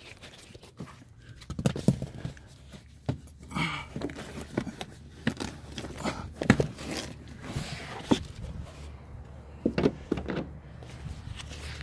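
Irregular rustling, rubbing and light knocks as a towel wipes a car's interior carpet and plastic trim.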